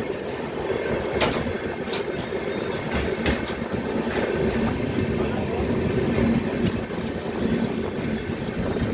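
Indian Railways passenger train running, its wheels rumbling steadily on the rails, heard from the open doorway of a moving coach. A few sharp wheel clicks come in the first two seconds.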